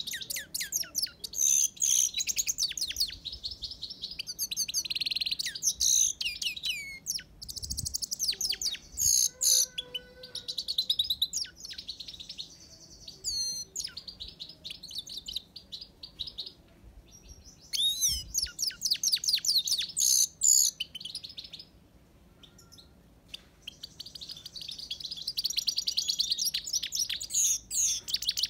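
Himalayan (grey-crowned) goldfinch singing: long phrases of fast, high twittering and trilling, broken by short pauses, the longest a couple of seconds about three quarters of the way through.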